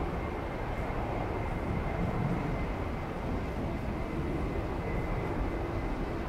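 Airbus A220-300 jet engines (Pratt & Whitney PW1500G geared turbofans) running at low taxi thrust as the airliner rolls past: a steady rushing noise with a faint high whine.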